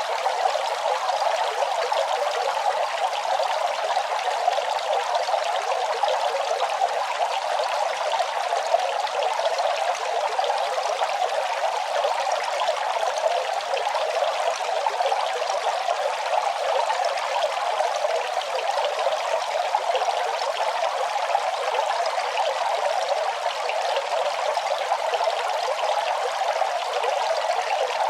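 Running water flowing and splashing in a steady, unbroken trickle.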